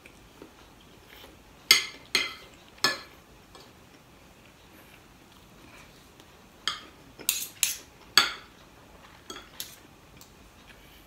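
A metal spoon and fork clinking against a ceramic dinner plate while eating. There are three sharp clinks about two seconds in, then another run of clinks from about seven to ten seconds in.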